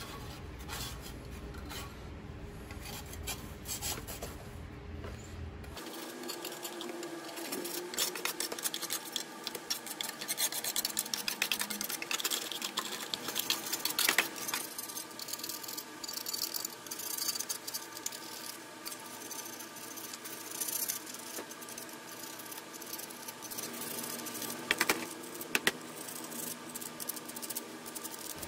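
A hand scraper scratching and rasping softened paint off the pressed-steel body parts of a toy dump truck in a plastic tub, in quick irregular strokes. The strokes become denser and scratchier after about six seconds.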